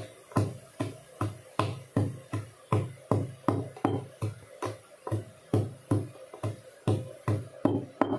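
Wooden pestle pounding garlic in a steel bowl: a steady run of dull thuds, about two to three a second.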